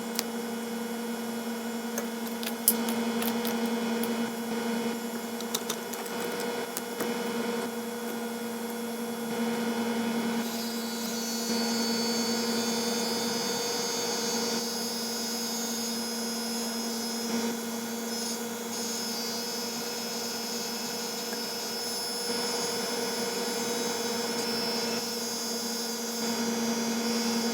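Hot air rework station blower running with a steady hum while the backlight IC is heated off the logic board. A higher whine joins partway through, and there are a few light clicks near the start.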